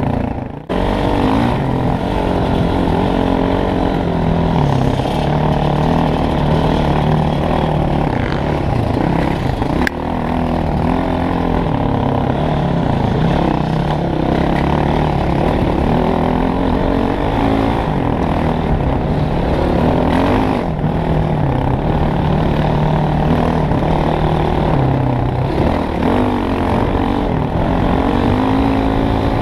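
Dirt bike engine heard close up from the rider's helmet while trail riding, its pitch rising and falling with the throttle. The sound briefly drops just under a second in.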